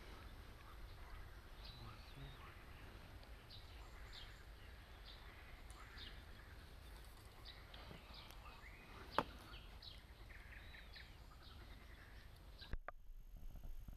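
Faint birdsong of many short repeated chirps from the lakeside reeds over a low steady rumble, with one sharp click about nine seconds in. The background drops abruptly near the end.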